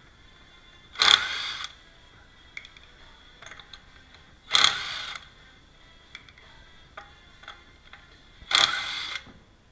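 Cordless impact wrench spinning lug nuts off a car wheel in three short bursts, about a second, four and a half seconds and eight and a half seconds in.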